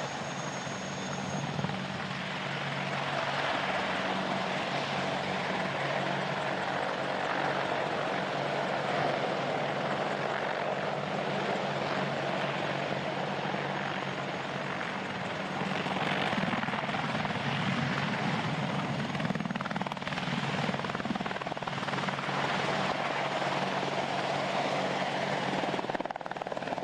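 Twin-turboshaft AH-64 Apache attack helicopters flying low overhead: steady turbine and rotor noise with a low hum, a little louder after the first couple of seconds.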